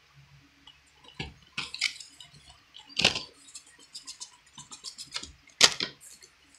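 Plastic Blu-ray case being handled and turned over: a string of clicks, taps and rustles, with two louder knocks about three seconds and five and a half seconds in.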